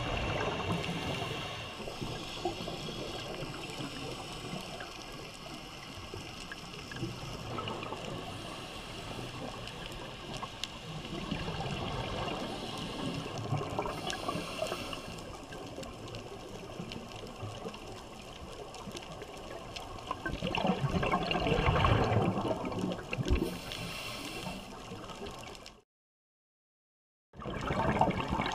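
Underwater wash of scuba regulator breathing and exhaled bubbles, gurgling in irregular surges, with the loudest surge about twenty seconds in. The sound cuts out completely for about a second and a half near the end.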